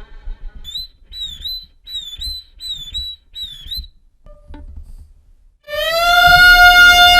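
Violin playing imitative sound effects: five short, high chirping notes, then a long, loud held note that begins to slide down in pitch near the end.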